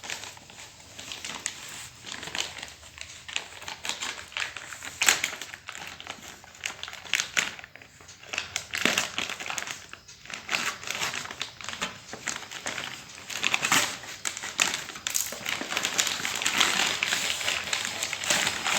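Parcel packaging being torn open and unwrapped by hand: irregular crinkling and rustling with sharp crackles, busier in the last few seconds.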